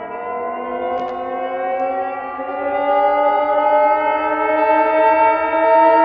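Air raid siren winding slowly up in pitch and growing louder, a single wailing tone with many overtones, slowed down to sound drawn out and ominous.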